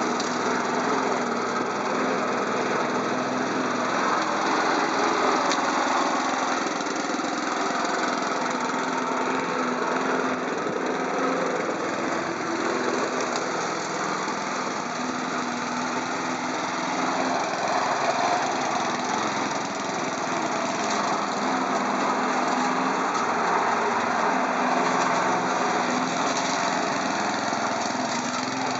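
A small engine running steadily, with no break or change in speed.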